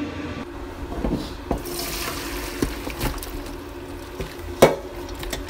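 Boiled chicken and its cooking broth being poured into a metal strainer, the broth splashing through, with clinks and knocks of metal pot and strainer. The loudest knock comes near the end.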